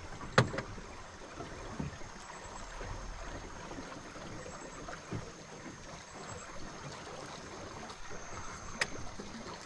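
Steady rush of river rapids flowing past a small fishing boat, with a sharp click just after the start and another near the end.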